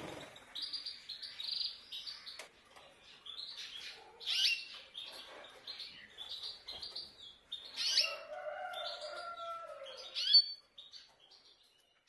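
Caged canaries and goldfinches chirping: short, high chirps repeated throughout, then a longer song phrase with held notes from about eight seconds in, ending in a loud, sharp chirp.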